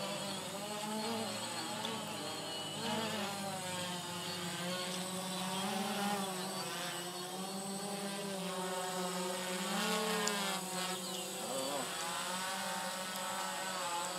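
DJI Phantom FC40 quadcopter's propellers humming in flight, the pitch wavering up and down as the motors change speed.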